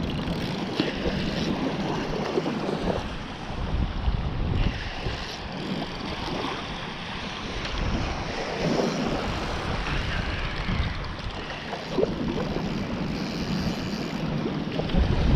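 Wind buffeting the microphone, with waves washing in the background; gusts swell and fade unevenly.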